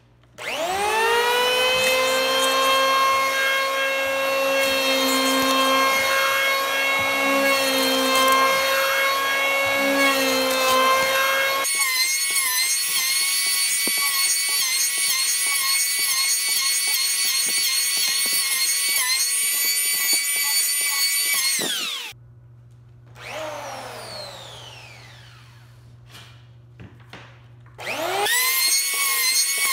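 Handheld electric planer spinning up with a rising whine, then running at a steady high whine with a rough shaving noise as its blades cut across the end of a log. Late on it spins down with a falling whine, and a few seconds later it starts up again.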